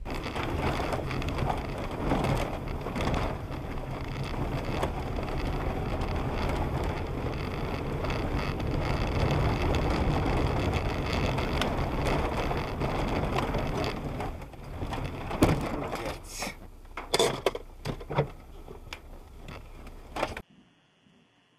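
Car on a snowy street heard from inside through a dashcam: steady road and engine noise, then a few sharp thuds and knocks from about fifteen seconds in as snow and ice from the overhanging trees land on the car. The sound cuts off abruptly near the end.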